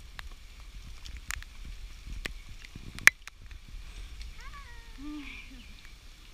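Rumble and clicks of a handheld camera carried along a forest trail, with one sharp, loud click about three seconds in. About four and a half seconds in comes a short wavering cry that falls in pitch.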